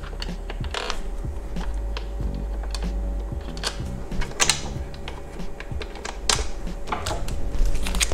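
Irregular small clicks and taps of screws being handled and set into the plastic housing of a BMW E36 instrument cluster by hand, with a few louder clicks in the middle.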